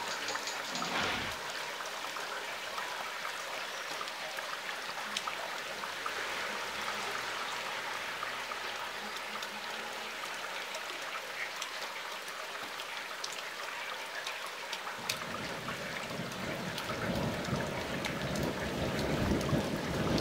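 Steady rain falling in a thunderstorm, with single drops ticking close to the microphone. About fifteen seconds in, a low rumble starts and swells toward the end.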